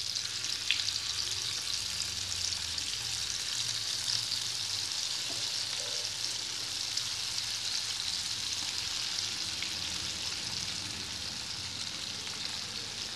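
Chilli-coated pieces of steamed tapioca and curry leaves deep-frying in hot oil in a pan: a steady, even sizzle, as more pieces are dropped into the oil by hand.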